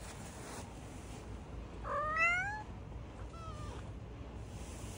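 A cat meowing: one short meow rising in pitch about two seconds in, then a fainter, higher mew about a second later.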